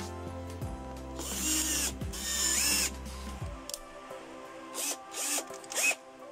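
Cordless drill spinning in short runs, twisting a pair of copper wires clamped in its chuck: two longer runs about a second and two seconds in, with the motor pitch rising and falling, then three brief blips near the end. Background music plays throughout.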